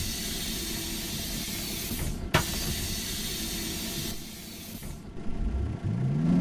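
City bus letting out compressed air in a long hiss, with a sharp click about two seconds in, the hiss dying away after about four seconds; near the end the bus's drive starts a rising whine as it pulls away.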